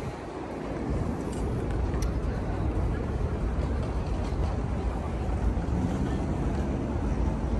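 City street noise: a steady low rumble of traffic with wind buffeting the microphone.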